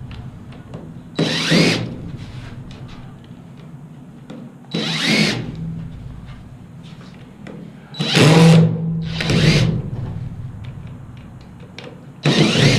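Power drill backing screws out of aluminum scrap in four short bursts a few seconds apart, each rising in pitch as the motor spins up.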